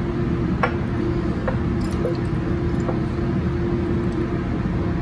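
Four light knocks of glass Erlenmeyer flasks being handled and set down on a paper-covered lab bench, over a steady low hum.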